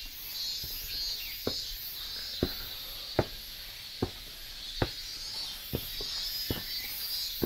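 Footsteps of someone walking at a steady pace, a sharp step roughly every 0.8 seconds, over a steady high-pitched chirring of insects that pulses in waves.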